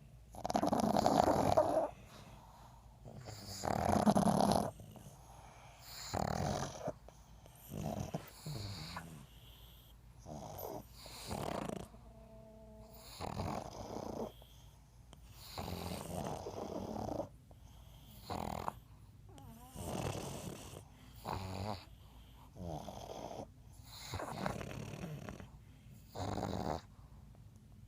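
Pugs snoring in their sleep: several overlapping snores in an uneven rhythm, the two loudest about one and four seconds in, then softer ones, with a brief whistling note midway.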